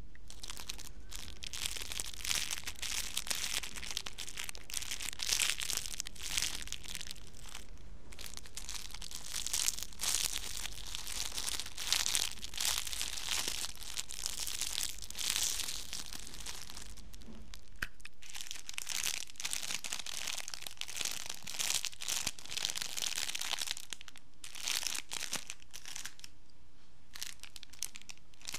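Clear plastic bags around squishy toys crinkling as they are handled, in irregular crackling runs with a few short pauses.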